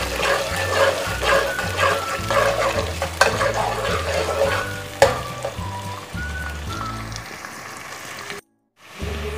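Chopped onions sizzling in hot oil in an aluminium pot, with a slotted metal spoon knocking and scraping against the pot as they are stirred, over soft background music. The sound cuts out briefly near the end.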